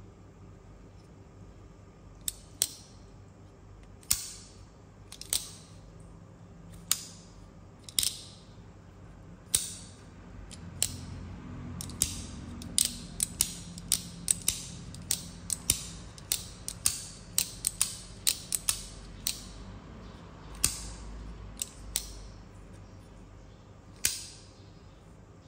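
Andrew Demko AD20i folding knife with a bearing pivot, flicked open and snapped shut again and again. Its blade and Shark Lock make sharp metallic clicks, spaced out at first, then in quick runs of about three a second, with a last click near the end.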